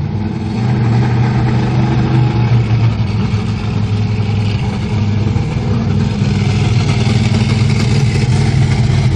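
Monster truck's engine running as the truck drives across the lot, a steady low engine note that gets louder about a second in and stays loud.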